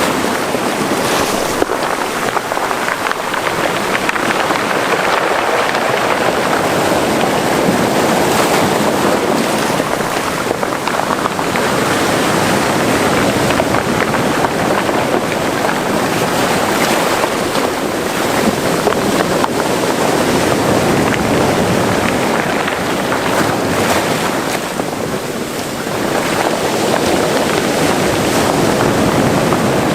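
Mediterranean Sea waves washing and surging against a rocky cove shore, a continuous rushing that swells and eases, with a short lull about 25 seconds in.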